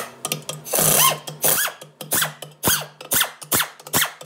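Pneumatic air ratchet run in short bursts, about two a second, each whirring up and back down in pitch, with one longer burst about a second in, as it backs out the pump bolts on a GM 6L80 transmission.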